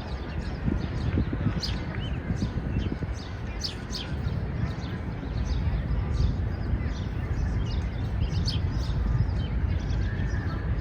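Outdoor park ambience: a steady low rumble with many short, high bird chirps scattered over it.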